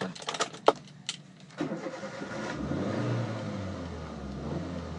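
A few sharp clicks and a key rattle, then a Hyundai Santro engine turns over on the starter about a second and a half in and catches, running steadily at idle.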